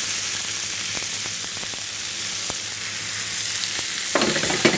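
Strips of chicken breast sizzling in oil in a hot non-stick frying pan, a steady hiss of frying. About four seconds in, a few louder clicks and clatters cut in over the sizzle.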